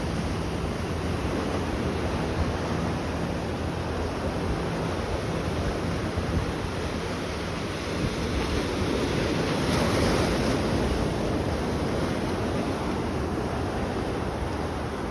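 Ocean waves washing, with wind buffeting the microphone; the wash swells once about two-thirds of the way through.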